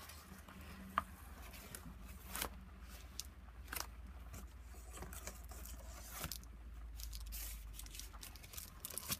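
Paper and plastic pages of a handmade collaged journal being handled and turned: scattered soft rustles, crinkles and clicks over a faint low hum.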